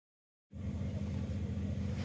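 Motorcycle engine idling steadily, cutting in about half a second in.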